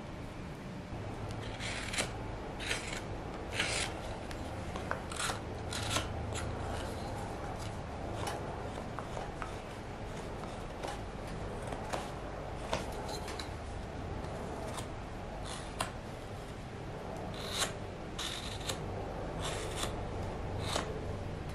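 Carving knife slicing shavings from a birch block: a string of short, crisp cuts at an uneven pace, over a steady low hum.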